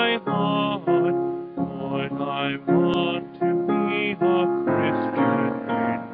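Instrumental hymn music led by piano, playing without singing.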